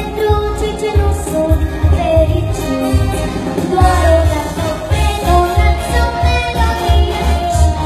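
A seven-year-old girl singing into a microphone over a pop backing track with a heavy, pulsing bass beat, heard through a hall's sound system.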